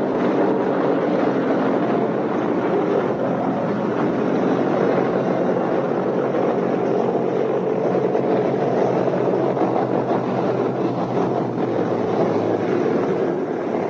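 Steady drone of a B-17 Flying Fortress's radial engines and propellers running on the ground.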